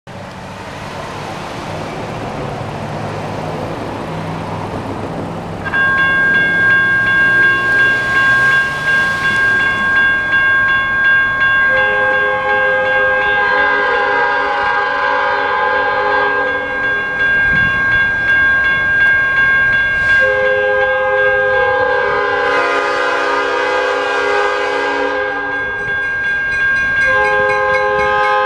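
General Signals Type 1 electronic crossing bells start ringing about six seconds in as the crossing activates, a steady repeating ding. From about twelve seconds in, the approaching train's multi-note air horn sounds two long blasts over the bells, with a third beginning near the end.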